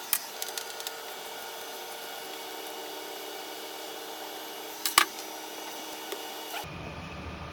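A metal door stopper being handled and taken down: a few small metallic clicks, then one sharp click about five seconds in. Near the end the background changes to a steady low hum.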